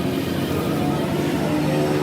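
An engine or motor running steadily with a low rumble and a steady hum.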